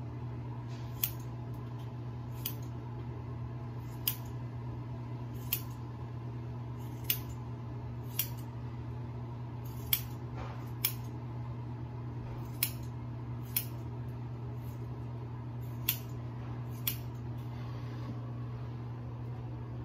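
Scissors snipping through wet hair, one short sharp snip at a time, about twelve snips spaced a second or two apart, over a steady low hum.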